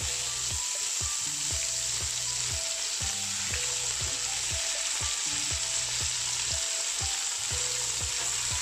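Sliced tomatoes, browned onions, garlic and ginger sizzling steadily in hot oil in a nonstick pan while being stirred with a silicone spatula.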